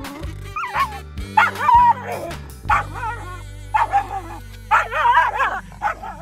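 A dog whining and yipping in a series of short, wavering high-pitched bursts.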